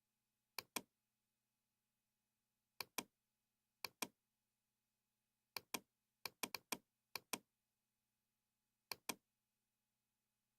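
Computer mouse clicking: eight sharp clicks, each a quick double tick of the button going down and coming back up. They come at uneven intervals, with a fast run of four about two thirds of the way through, over a faint steady hum.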